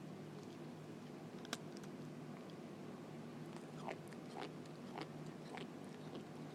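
Crunchy chewing: a sharp click, then a run of crisp bites about half a second apart in the second half, over a faint steady low hum.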